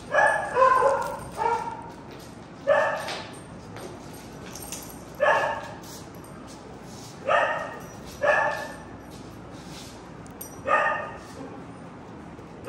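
A dog barking in short single barks, a quick run of three near the start and then one every second or two, about eight in all: play barking while dogs romp together.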